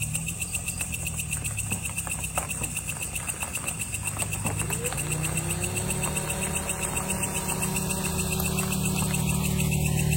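Car engine running with a steady low hum; about halfway through, its pitch rises and then holds higher as the car accelerates.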